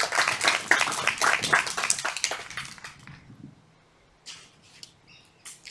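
A small group of children clapping, the applause dying away about three seconds in.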